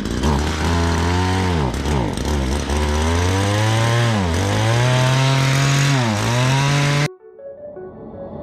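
An engine running hard, its pitch dipping and climbing again three times, then cutting off abruptly near the end.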